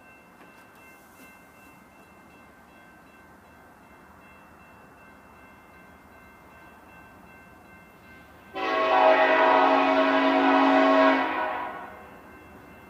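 Locomotive air horn sounding one long blast of about three seconds, starting about two-thirds of the way in and fading away at the end, over a faint steady background.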